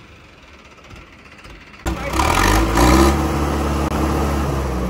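Vehicle engine running loud and hard, cutting in suddenly about two seconds in after a quieter stretch.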